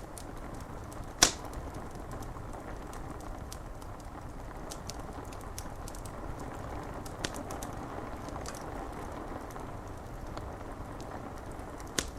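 Steady rain with a wood fire crackling: scattered small ticks and pops, with one sharp loud pop about a second in and another near the end.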